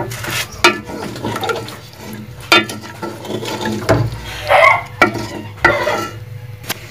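Wooden spoon stirring watery potato-and-chicken curry in a metal cooking pot, knocking and scraping against the pot with the liquid sloshing, in a run of sharp irregular knocks. This is the water just added being mixed into the fried masala to make the gravy.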